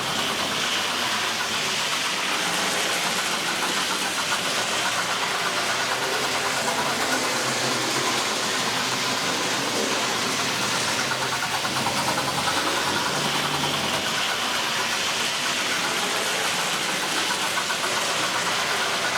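Hornby 4-6-0 model locomotive running, with the sound box in its tender playing steady steam-engine sounds.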